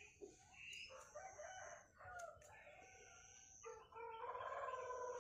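Chickens clucking faintly, then a rooster crowing one long drawn-out call from about four seconds in. Near the middle come a couple of sharp clicks from pruning scissors snipping twigs.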